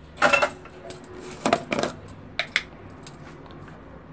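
A spoon clinking against steel kitchenware: a handful of sharp metallic clinks with a brief ring, spread through the few seconds in small clusters.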